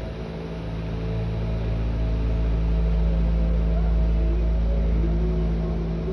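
Two-car electric local train creeping along a station platform, heard from inside the car: a steady low running drone with a constant hum, and faint rising whines in the second half.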